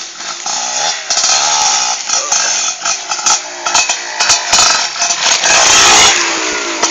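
Trail motorcycle engine revving, its pitch rising and falling with the throttle; loudest about five to six seconds in as the bike comes close.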